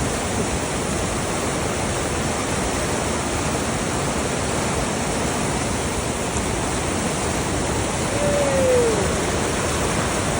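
Steady rush of water pouring over a dam, an even, unbroken roar. A short falling whistle-like tone sounds once about eight seconds in.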